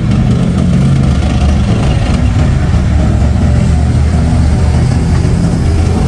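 Tracked armoured vehicles, a Leopard 2SG main battle tank followed by another tracked vehicle, driving past with a loud, steady, low diesel-engine rumble.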